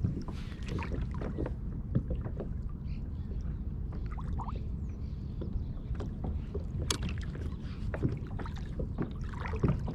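Kayak on open water: small knocks, clicks and splashes of water and gear against the hull, scattered irregularly with a sharper knock about seven seconds in, over a steady low rumble.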